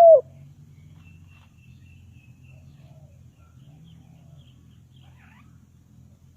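The last note of a spotted dove's coo ends at the very start, then a low steady background rumble with faint, scattered high chirps of small birds.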